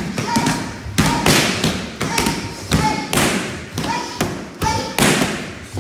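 Kicks and punches slapping against Thai pads in a rapid series of sharp thuds, about two a second, from several pairs training at once.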